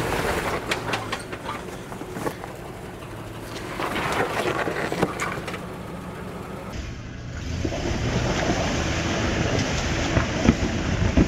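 Jeep Wrangler JKU Rubicon's engine running at low revs as it crawls up a steep trail of large loose rocks, with scattered sharp clicks and knocks of rock under the tyres.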